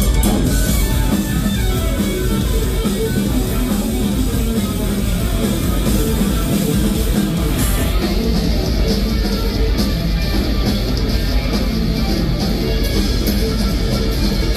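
Live rock band playing loud and amplified: electric guitar out front, with bass guitar and a drum kit.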